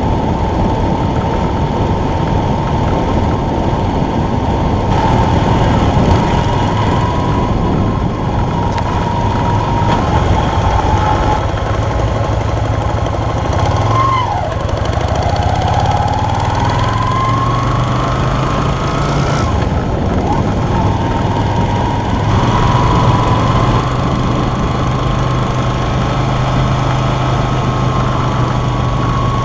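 Yamaha Virago XV250's air-cooled V-twin engine running under way. The revs drop about halfway through, then climb steadily again as it pulls away.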